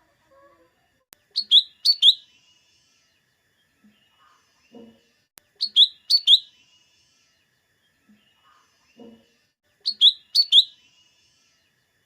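Cucak ijo mini (cucak daun), a small leafbird, singing. It repeats a short phrase of three sharp, high notes about every four seconds.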